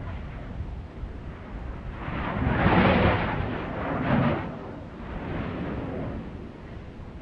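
Stromboli volcano erupting at its summit crater: a strombolian blast of rushing gas swells up about two seconds in, surges twice about a second and a half apart, then fades, with a weaker swell after it. A low rumble of breeze on the microphone runs underneath.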